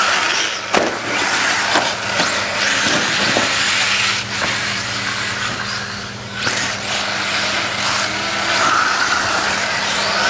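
1/8-scale radio-controlled late model race cars lapping an oval, their small high-revving engines running continuously and swelling and fading as the cars pass.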